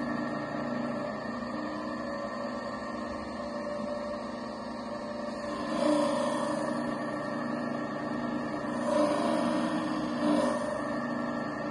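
Flat-disc shear sharpener running with a steady hum while a curved grooming-shear blade is held freehand on the spinning disc to grind a small bevel. The sound swells louder briefly three times, about halfway through and twice near the end.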